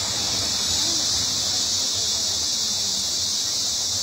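Cicadas in the surrounding forest making a steady, high-pitched buzz that does not let up, over a low rush of river water.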